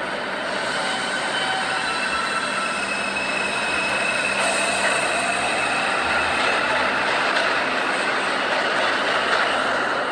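New York City subway 2 train running, heard from inside the car: a steady rolling noise with thin high whines held over it.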